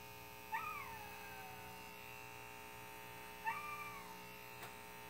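Electric hair clippers buzzing steadily while trimming a small boy's hair. Twice, about half a second and three and a half seconds in, a short high whine rises and then falls over it.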